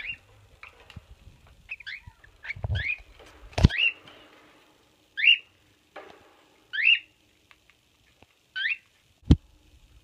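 Cockatiels giving a series of short rising chirps, one every second or two. Two sharp knocks stand out, one a little over a third of the way in and one near the end.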